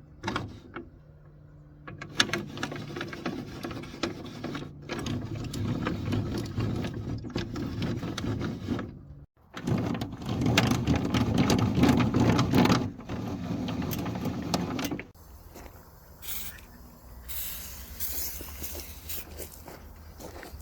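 A job-site table saw's blade-height crank is being turned, its freshly dry-lubed elevation gears and slide shaft working with a dense, uneven clicking rattle. It comes in several stretches with brief breaks and is quieter after about fifteen seconds.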